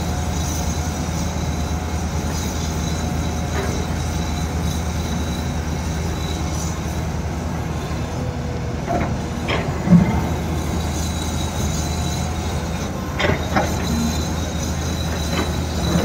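LiuGong 922E crawler excavator's diesel engine running steadily under load as it digs, with a thin steady high hydraulic whine over the low drone. A few brief knocks and scrapes from the bucket working the soil, the loudest about ten seconds in.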